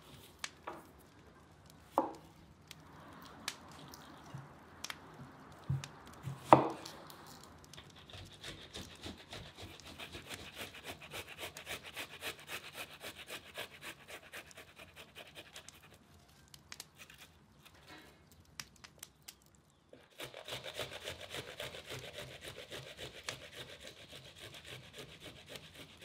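A few separate knocks, then tomatoes being grated on a stainless-steel box grater over a bowl: quick, rhythmic rasping strokes. The strokes stop for a few seconds past the middle and then start again.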